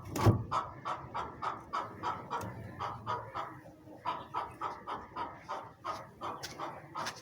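An animal panting rapidly and evenly, about four to five breaths a second, with a heavier thump just after the start.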